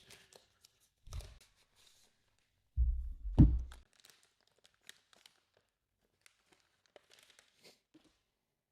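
Packaging and keyboard parts being handled on a desk: scattered small clicks and rustling, a dull thump about a second in, and a louder thump with a sharp knock around three seconds in.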